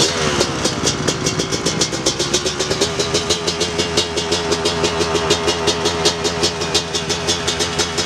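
Two-stroke Kawasaki motocross bike engine running, its revs dropping back from a throttle blip at the start and settling into a steady, pulsing idle about three seconds in.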